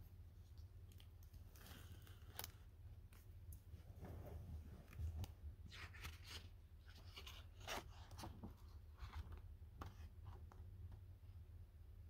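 Faint rustling and soft taps of a hardcover picture book being opened by hand, its jacket flap and pages turned one after another.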